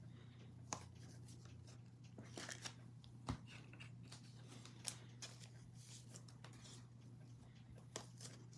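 Faint handling of trading cards and their packs: a few light ticks and a brief rustle as cards are slid and tapped, over a low steady hum.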